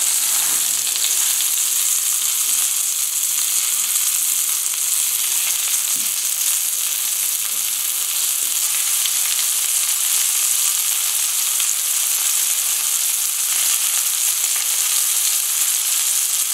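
Cod fillet frying in hot oil and butter in a pan, a steady sizzling hiss with faint crackles, cooking on its second side after being turned.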